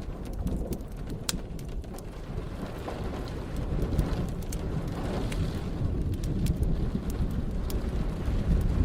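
Deep rolling thunder rumble that swells a few seconds in, over steady rain, with sharp fireplace crackles and pops scattered throughout.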